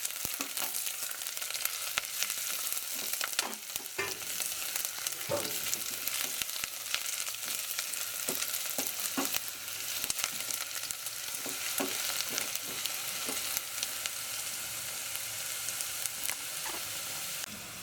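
Sliced onions, garlic and ginger sizzling in hot oil in a pan, with the scrapes and knocks of stirring scattered through.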